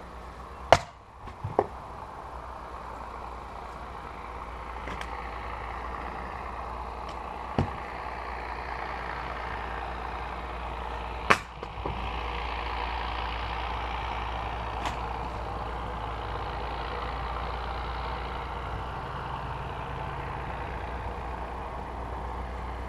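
Splitting maul (a 2.5 kg Cyclone splitter) striking firewood rounds: a sharp crack about a second in, followed by a smaller knock, then a weaker hit near eight seconds and another sharp crack around eleven seconds. Beneath the strikes is a steady background noise that grows louder after a few seconds.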